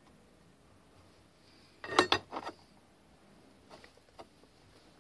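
Steel coupling parts clinking against each other and the lead screw as they are fitted by hand: a quick cluster of metallic clinks about two seconds in, then two light clicks near the end.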